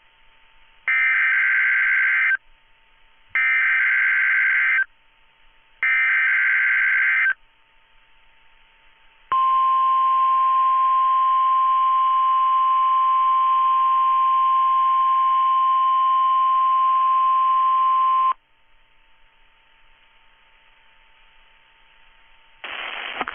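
NOAA Weather Radio test alert: three short bursts of SAME digital header data tones, each about a second and a half long, followed by the 1050 Hz warning alarm tone held for about nine seconds before it cuts off.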